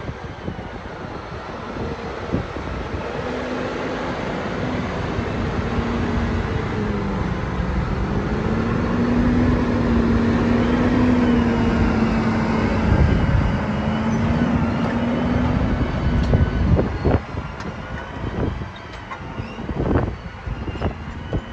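Claas Axion 930 tractor's six-cylinder diesel engine pulling a plough under load through heavy soil. It grows louder as the tractor draws close and passes, with a steady engine note that dips briefly near the middle. In the last few seconds a string of sharp knocks and crunches comes as the plough bodies pass, turning the soil.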